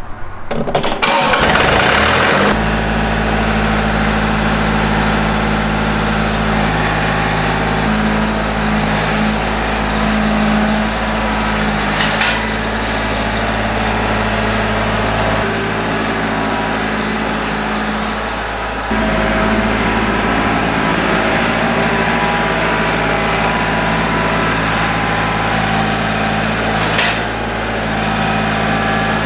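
John Deere 4310 compact tractor's three-cylinder diesel engine being started with the key: it cranks and catches within the first two seconds or so, then runs at a steady speed. There are short clicks about twelve seconds in and again near the end.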